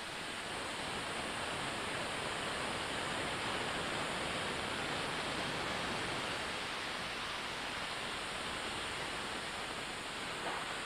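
Steady hiss of steam escaping from a GWR Castle-class steam locomotive.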